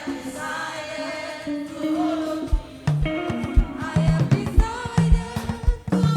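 Choir singing with a band: voices alone at first, then the drum kit and a bass line come in about two and a half seconds in with a steady beat.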